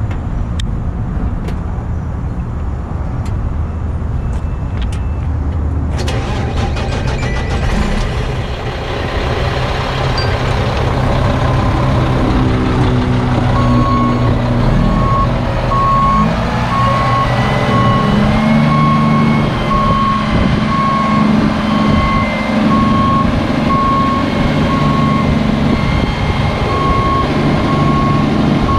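Mack AMI 335 diesel engine of a roll-off truck running, its speed rising from about eight seconds in as the hydraulic hoist is raised. From about fourteen seconds a beeping alarm sounds roughly once a second.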